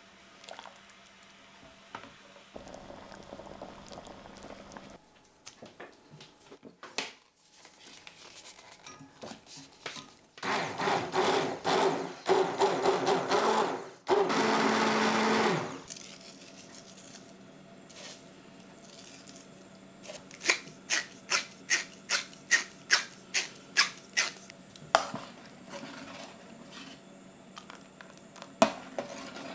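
Hand-held stick blender running in a pot of soup in two bursts, about five seconds in all, puréeing it until creamy. Before it, soft stirring in the pot; after it, a run of about a dozen light, evenly spaced clicks.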